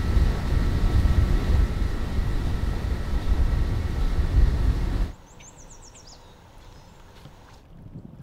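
A loud, steady low rumble, like a vehicle running, cuts off abruptly about five seconds in. Quiet outdoor background follows, with a short, rapid series of high chirps just after the cut.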